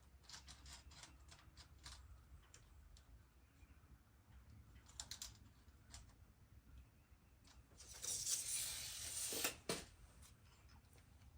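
Scattered light metallic clicks and clinks of hand work on the new steering tie rods, with a louder noise lasting about two seconds, about eight seconds in.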